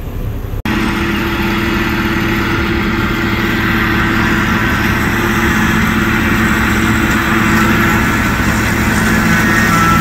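John Deere 4450 tractor's six-cylinder diesel running steadily under load, pulling a forage harvester that chops hay into a wagon. The sound starts abruptly about half a second in.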